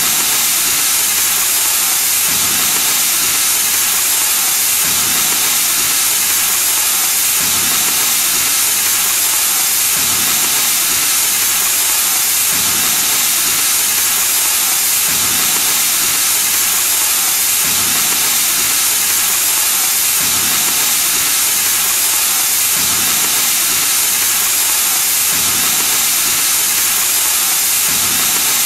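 HK-30 portable oxy-acetylene cutting machine's torch flame-cutting steel plate: a steady, loud hiss of the flame and cutting-oxygen jet, with a faint low pulse about every two and a half seconds.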